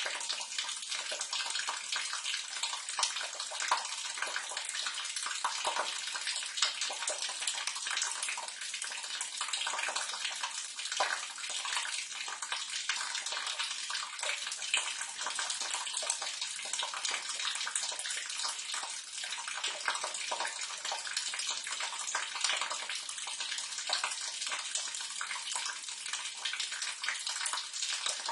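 Water splashing and trickling steadily down a drain gully into a sewer, a continuous bright rush with small irregular splashes.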